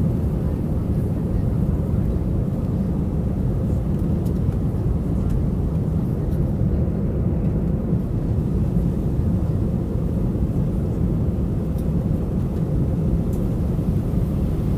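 Steady low rumble of an Airbus A319 airliner heard from inside the passenger cabin, with a faint steady hum above it.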